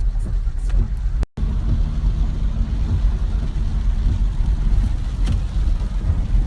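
A motor vehicle's engine running with a steady low rumble and hum. The sound cuts out completely for a moment about a second in.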